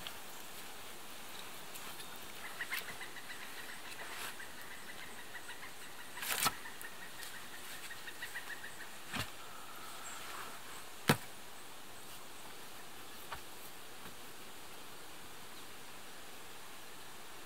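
Quiet outdoor background with insects buzzing, including a pulsing buzz for a few seconds early on. Several sharp knocks break in, the loudest about eleven seconds in, typical of wood being handled at the shelter.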